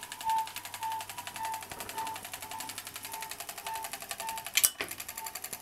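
Seeburg Stereo Showcase jukebox mechanism running on a test: a fast, even mechanical chatter with a tone pulsing about twice a second, and one sharp clack about four and a half seconds in.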